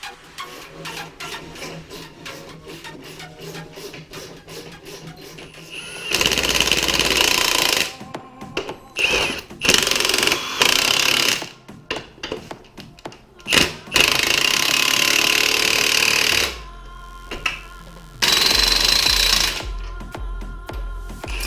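Impact wrench hammering in four bursts of one to two and a half seconds, tightening bolts, over background music.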